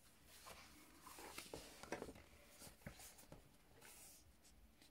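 Faint rustles and a few soft taps of hands handling a paperback colouring book and its paper pages as the book is turned on a table.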